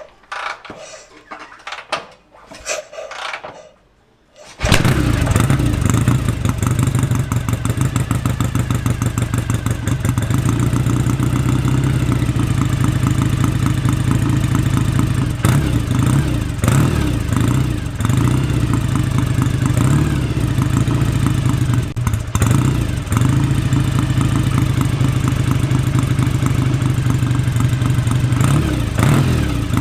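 1966 BSA Lightning 650 cc parallel-twin engine being kick-started after standing unused for 14 months: a few sharp clunks, then it fires about four and a half seconds in and runs steadily with a fast, even beat and a few brief revs.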